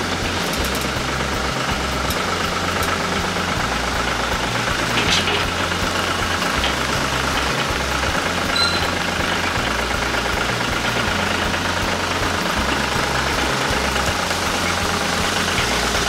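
Farm utility tractor's diesel engine running steadily at low speed as the tractor creeps forward.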